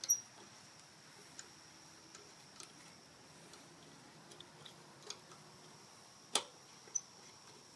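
Thread tap turned by hand in a T-handle tap wrench, cutting dry into a worn mount-bolt hole in a Kohler K321's aluminum oil pan to retap it for a bigger bolt: scattered faint clicks and ticks, with one sharper click about six seconds in.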